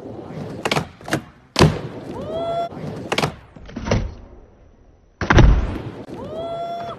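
Skateboard rolling on a plywood mini ramp, its wheels and deck knocking and thudding on the wood about six times, the heaviest thuds about one and a half seconds in and just after five seconds. Two short rising tones sound over it, one in the middle and one near the end.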